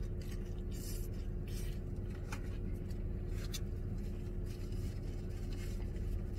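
Steady low hum of a car idling, heard inside the cabin. Over it come scattered short clicks and smacks of a man chewing a mouthful of chicken panini.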